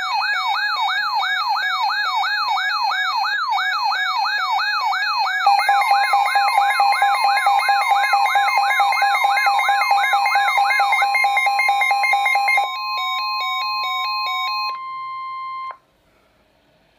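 Radio Shack 12-519 weather alert radio sounding its alert: an electronic siren wailing up and down about two and a half times a second. About five seconds in, the steady 1050 Hz NOAA Weather Radio warning tone joins with quick pulsed beeping. The siren and beeps stop first, and the steady tone cuts off about a second before the end.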